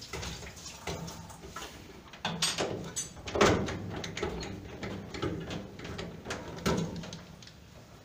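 Irregular knocks, clicks and rattles of hands working at the back of a washing machine's cabinet among its wiring and hoses, the loudest knock about three and a half seconds in.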